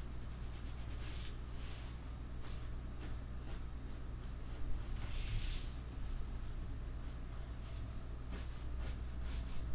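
Pencil scratching on paper in a run of short shading strokes, with one longer, louder stroke about five seconds in, over a faint steady low hum.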